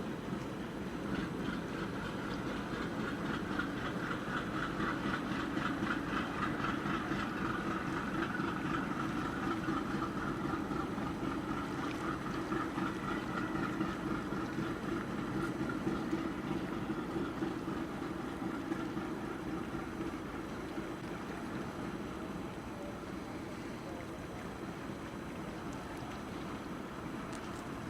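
A passing engine's hum with a fast pulsing beat. It swells over the first few seconds, holds, then fades away over the second half.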